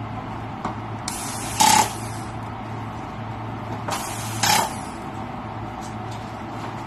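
A hand-held air tool gives two short hissing bursts, about three seconds apart, the first louder and ending in a brief whine. A steady low hum runs underneath.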